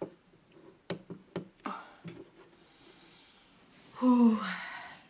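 A few sharp clicks and knocks as a phone camera is handled and set in place, then, about four seconds in, a woman's short groan with a falling pitch as she settles onto the sofa with aching legs.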